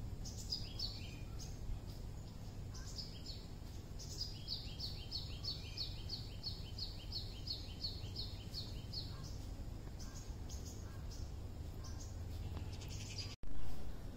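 A bird singing a fast run of short, repeated downward-sliding notes, about four a second, over a steady low background rumble. Near the end a much louder noise cuts in.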